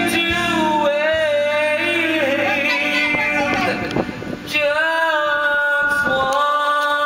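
A man singing karaoke through a handheld microphone over a backing track, holding long notes with vibrato, with a short break about four seconds in before the next held note.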